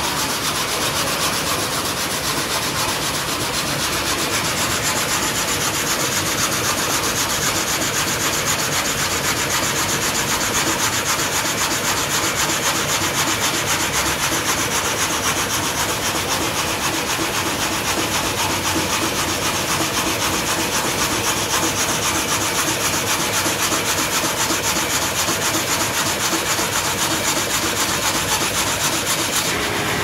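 A sawmill's horizontal log saw cutting lengthwise through a large tree trunk: a steady, unbroken rasp of the blade through the wood.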